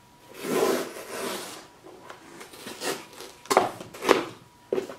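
Packing tape being peeled off a cardboard box: one long scraping pull lasting over a second, then several short sharp tearing sounds about half a second apart.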